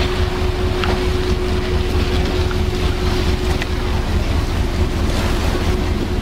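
Icebreaker ship's engine running with a steady low rumble and a constant hum as the hull breaks through drift ice, with the grinding of ice along the side and a few faint cracks.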